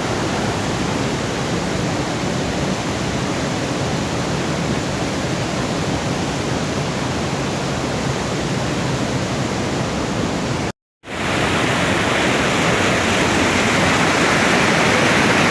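Steady rush of fast-flowing river water over rapids. About eleven seconds in it cuts out for a split second, then comes back a little brighter and louder.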